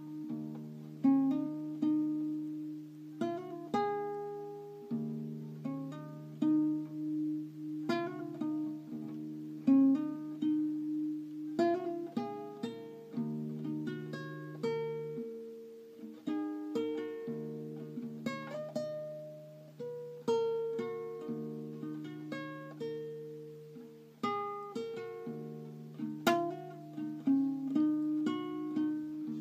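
Classical nylon-string guitar played fingerstyle as a solo piece: single plucked notes and chords ring out and fade over held bass notes.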